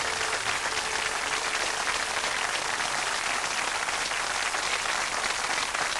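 Studio audience of children and adults applauding, a steady dense clapping.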